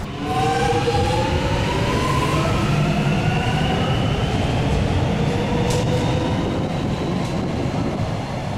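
Electric suburban train in an underground station pulling away, its motors giving a whine that rises in pitch over the first few seconds above a steady low rumble.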